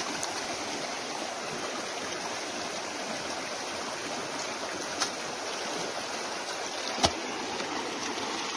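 Creek water running steadily, mixed with the slosh and pour of a grass sluice mat being rinsed and lifted over a plastic basin of water: the gold-bearing concentrate is being washed out of the mat. A couple of short knocks come about 5 and 7 seconds in.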